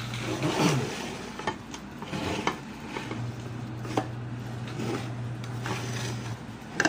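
Crisp breaded fried food rubbed and shifted by hand on a plate, with a few sharp clicks of dishware, over a steady low hum.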